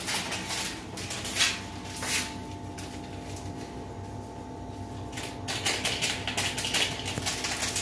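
Small packets of baking powder crinkling and crackling as they are torn open and shaken out over a bowl of flour. A few scattered crackles come first, then a quick run of them over the last couple of seconds, above a faint steady hum.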